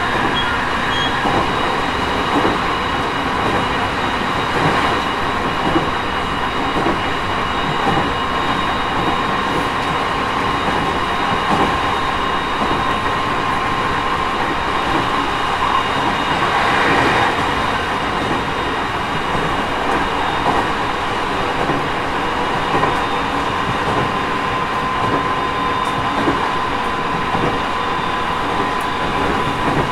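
Interior running sound of a JR East 209 series 3000-subseries electric train with GTO-VVVF inverter control, heard in motor car MoHa 208-3002 under way between stations. A steady rumble of wheels on rail with occasional joint clicks, thin steady tones running through it, and a brief swell about halfway through.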